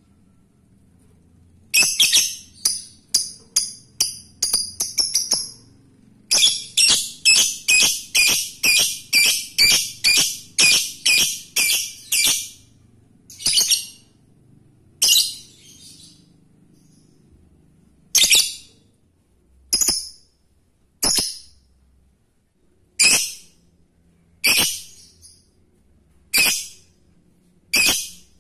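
Male Fischer's lovebird calling for a female with shrill, piercing chirps: two fast runs of about three calls a second, then single calls every second or two.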